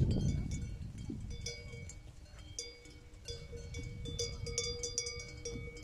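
Bells on grazing sheep clinking and ringing irregularly at several pitches across the flock. From about halfway, a long drawn-out sheep bleat runs beneath them, and a low rumble fades out over the first two seconds.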